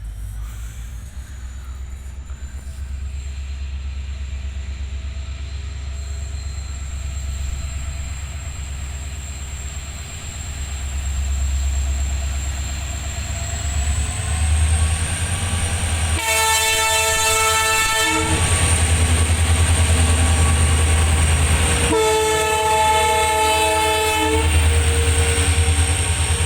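WDG-4 diesel locomotive with its engine running and growing louder, sounding its horn twice about two-thirds of the way in: two blasts of about two seconds each, some six seconds apart.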